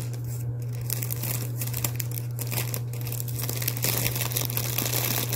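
Thin clear plastic bag crinkling and rustling as marshmallows are pushed into it by hand, a dense irregular crackle that gets busier about a second in. A steady low hum runs underneath.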